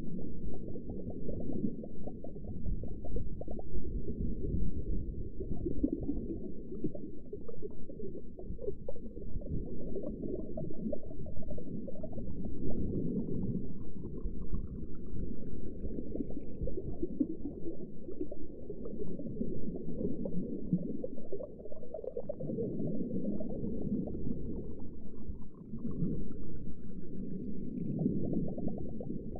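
Underwater ambience: a muffled, low wash of moving water with bubbling and gurgling, swelling and easing every few seconds. Faint rising tones come through twice, about midway and near the end.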